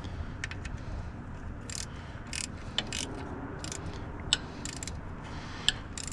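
Hand socket ratchet clicking in irregular short strokes as bolts are run down and snugged on a freshly fitted gasket, with a couple of sharper clicks near the end.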